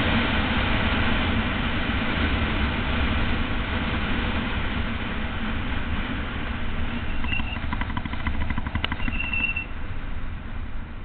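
Wind rushing over the microphone and tyre rumble from a road bicycle descending on rough tarmac, easing off as the bike slows in the second half. About seven to nine seconds in there is a run of fast ticks and two short high squeals.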